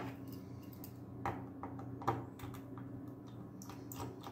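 Scattered light clicks and taps, about half a dozen, from fingers and tools handling the parts and connectors of an opened Samsung Galaxy A31 smartphone.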